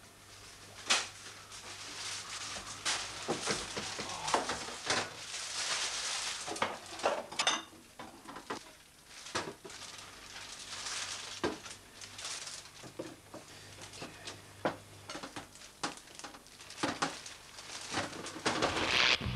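A metal spoon scraping and knocking against a plate and a plastic bottle, with irregular clicks, taps and scrapes of handling. A faint low hum underneath stops about fifteen seconds in.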